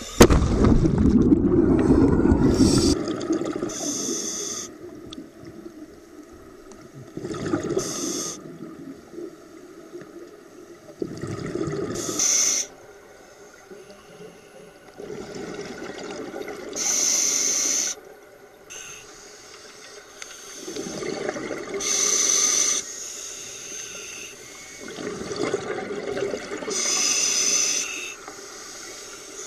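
A scuba diver breathing through a regulator underwater: a breath every four to five seconds, each one a bubbling rumble of exhaled air and a sharp hiss. It opens with a loud rush of water for the first few seconds as the diver goes under.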